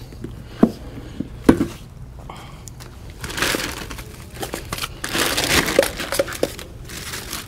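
A couple of short knocks in the first two seconds, then plastic packaging crinkling and rustling as it is handled, from about three seconds in.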